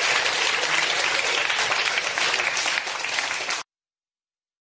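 Audience applauding steadily, cut off suddenly about three and a half seconds in.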